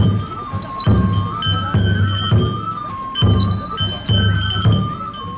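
Shishimai festival music: a bamboo flute playing a melody that steps up and down in pitch over groups of quick, loud taiko drum strokes about once a second.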